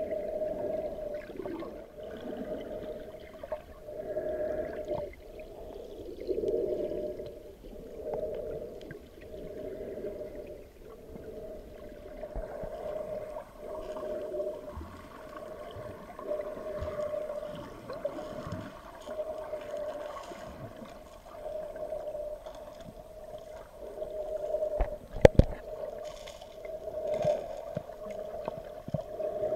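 Muffled water sloshing and gurgling heard from a camera just under the sea surface, with a steady hum that swells and fades every couple of seconds. A sharp knock about 25 seconds in.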